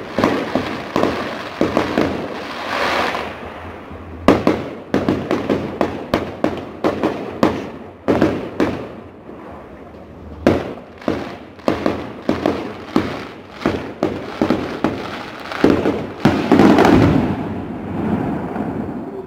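Fireworks display: aerial shells going off one after another in a series of sharp, irregular bangs. A dense, loud run of reports comes a few seconds before the end, then the bangs die away.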